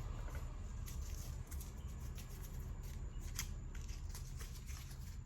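Paper being handled and unfolded: small irregular crinkles and ticks over a low steady hum.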